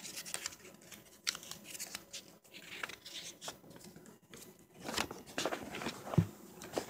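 Handling noise as a camera is set down and moved about: scattered rustles, scrapes and small clicks, busier in the second half, with a sharp knock about six seconds in.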